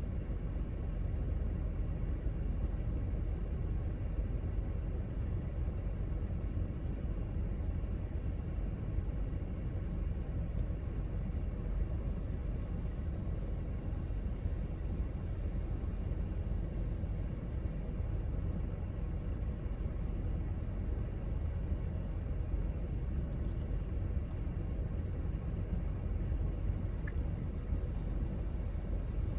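Union Pacific manifest freight train rolling past, the cars making a steady low rumble. A pickup truck passing close by adds a brief rise of tyre hiss around the middle.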